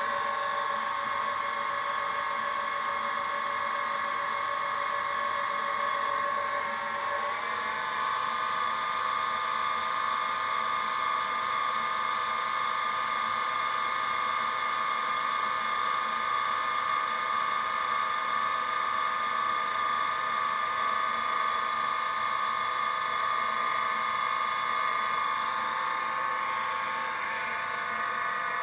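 Sieg SX2P mini mill spindle running with a steady whine while a 2.65 mm drill bit drills a brass crosshead. The whine steps up in pitch about seven seconds in.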